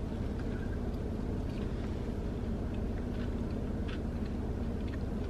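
Steady low hum of a car cabin, with a few faint chewing sounds as a boneless chicken wing is eaten.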